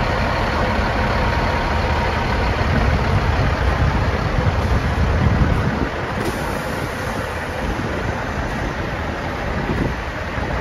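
Caterpillar C-15 inline-six diesel in a Freightliner tractor idling with a steady low rumble. It is louder for the first six seconds, then drops a little.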